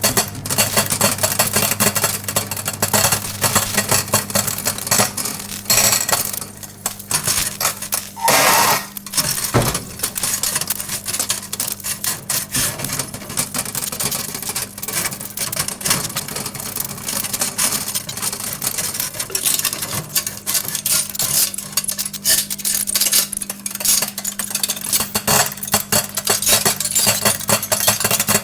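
Metal forks arcing inside a running microwave oven: dense, irregular crackling and snapping sparks over the oven's steady hum, with a louder burst of sparking about eight seconds in.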